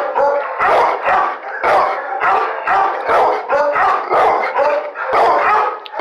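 Dog barking over and over, two or three short pitched barks a second with no break.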